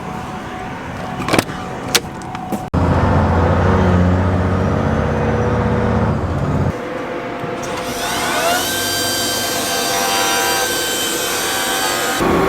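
Heavy vehicle engines heard across several quick cuts. A couple of sharp clicks come first, then a loud low engine running. About eight seconds in, an engine speeds up with a rising whine as the truck pulls away.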